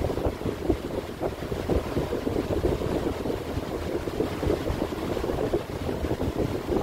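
Steady, uneven rushing and buffeting, like moving air hitting the phone's microphone, with most of the noise low down.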